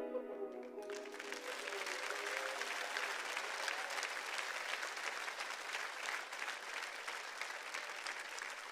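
The last notes of music dying away, then an audience applauding, starting about a second in and going on steadily.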